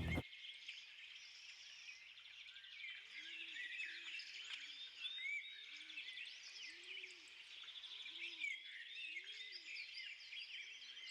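A faint chorus of many birds chirping and trilling, with a low call repeating about once a second from about three seconds in.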